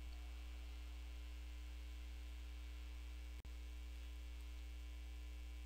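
Steady low electrical hum in the recording, with no other sound. It is broken once by a brief click about three and a half seconds in.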